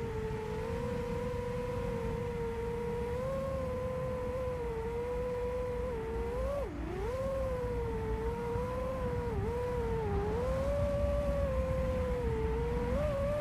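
Five-inch FPV racing quadcopter's brushless motors (T-Motor Velox 2207 2550KV on 4S) whining through their propellers in flight, the pitch wavering with throttle and dipping several times, most deeply about six and a half seconds in. Under it a steady low rumble of airflow on the onboard camera's microphone.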